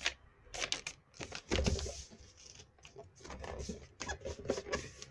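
Sheet of A4 paper rustling and crinkling as it is handled and folded into a paper popper, with scattered crackles and a few dull bumps.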